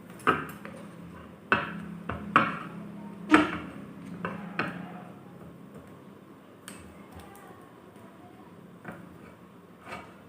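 Iron rods and a wooden stick knocking and clicking as they are handled and tied together with thread: about seven sharp knocks in the first five seconds, then a few fainter ones, over a faint steady hum.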